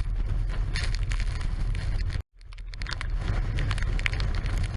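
Strong storm wind buffeting the microphone, a steady rumbling rush of noise. It drops out for a moment about two seconds in, resumes, and cuts off suddenly at the end.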